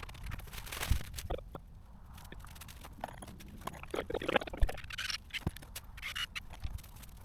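Irregular scraping, crunching and knocking on snow and ice as gear is handled, with scattered sharp clicks and a few short gritty scrapes a little after the middle.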